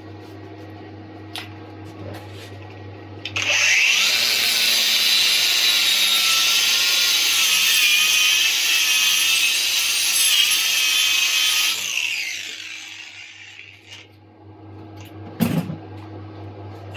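Power tool with a rotary wire brush starting up about three seconds in, scrubbing a freshly laid gasless fillet weld for around eight seconds with a wavering whine and hiss, then winding down. A steady low hum runs underneath, and a single knock comes near the end.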